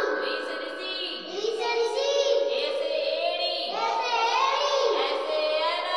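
A child's voice singing a Hindi alphabet rhyme of the vowels, with steady held musical tones underneath.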